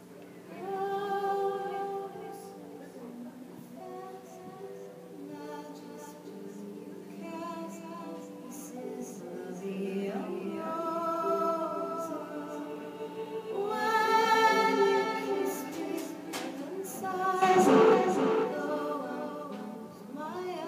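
Music: a singing voice holding long, slow notes over a steady low drone.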